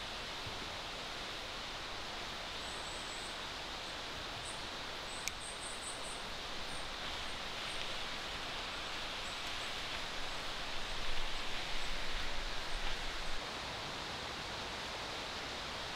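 Steady outdoor forest ambience, an even rushing hiss, with faint high bird chirps scattered through the first ten seconds and a single sharp click about five seconds in. A low rumbling noise swells from about eleven to thirteen seconds in, then drops away.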